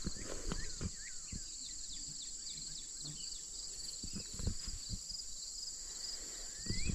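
Steady high-pitched chorus of crickets and other insects trilling outdoors, with a few short rising chirps and scattered soft low thumps.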